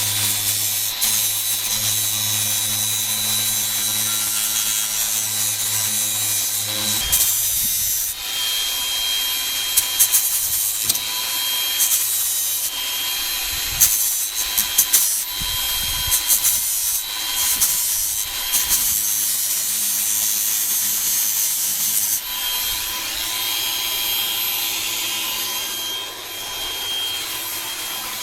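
Electric grinder running, deburring the sharp edges of an aluminium plate cut from a hard drive casing. The motor's steady whine starts suddenly, and from about seven seconds in until about twenty-two seconds it is broken by loud, irregular scraping as the metal is pressed against it.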